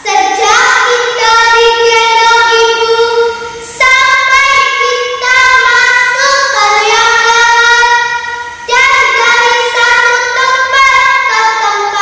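A young girl singing solo, holding long high notes in melodic phrases, with short breaks about four and nine seconds in.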